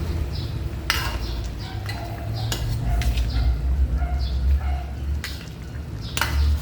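Cooking utensil clinking and scraping against a pan as the sauce is stirred, with a few sharp clinks spread through, over a steady low hum.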